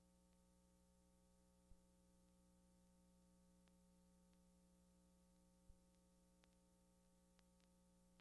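Near silence: a faint steady hum, with two faint clicks.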